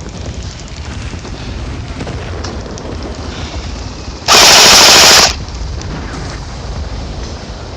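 An airsoft G36 rifle firing one full-auto burst of about a second, about halfway through, so loud that it overloads the recording. Low wind rumble on the microphone the rest of the time.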